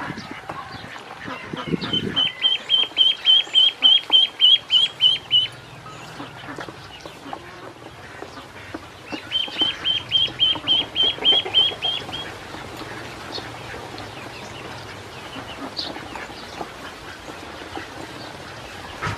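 Ducklings peeping, in two runs of rapid, evenly spaced high peeps of about four or five a second, over small splashes and dabbling as they feed in a shallow basin of water.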